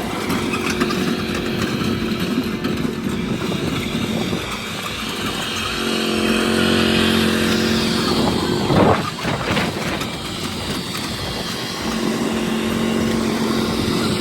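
An engine running steadily, with a steady hum that drops out and returns, and a brief louder burst about nine seconds in.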